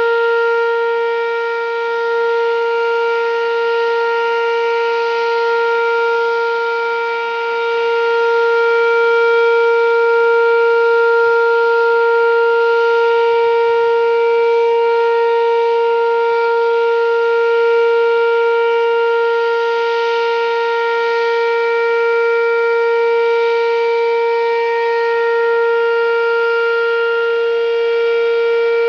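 Whelen 2805 electronic outdoor warning siren sounding its Alert signal, the steady tone used for tornado warnings. It holds one unbroken pitch throughout, gently swelling and fading in loudness.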